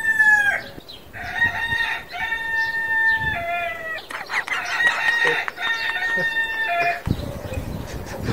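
Rooster crowing repeatedly: several long, held calls in a row, some ending in a falling drop, which stop about 7 seconds in.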